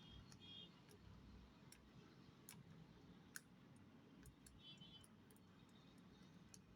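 Near silence with faint, irregularly spaced small clicks.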